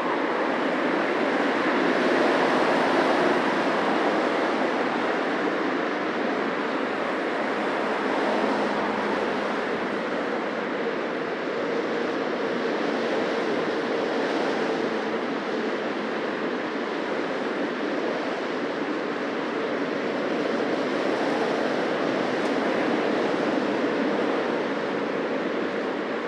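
Busy city street traffic: a steady wash of cars passing by close to the recording spot, swelling and easing as vehicles come and go.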